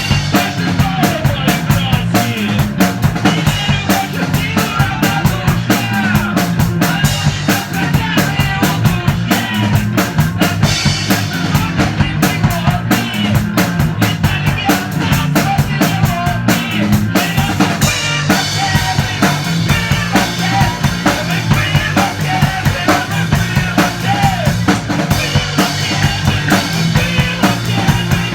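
Rock band playing a song together: drum kit keeping a steady beat with bass drum and snare, over a repeating bass line and guitars.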